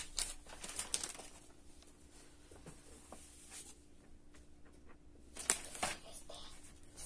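Paper catalogue pages being handled and turned: faint rustling with a few sharper page flicks, the loudest about five and a half seconds in.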